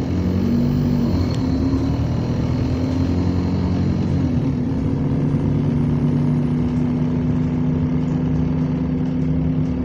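Bus engine running at a steady speed, a continuous low hum with an even pitch, heard from inside the passenger saloon.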